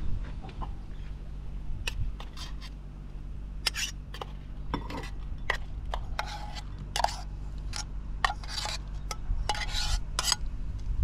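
A spoon scraping and clinking against a small metal camping pot as cooked yabbies are tipped and scraped out onto a bowl of rice. The scrapes and clinks come irregularly, thickest in the second half, over a steady low hum.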